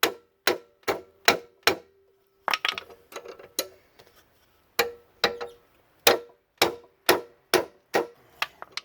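Wooden mallet striking a wrench on a lawn mower's blade bolt to tighten the new blade. The blows come about two a second, each with a short metallic ring. There is a brief break with some lighter clatter, then the blows start again.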